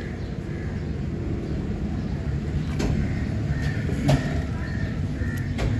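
Workshop background: a steady low rumble, like traffic outside, with a few sharp knocks about three seconds in, four seconds in and near the end.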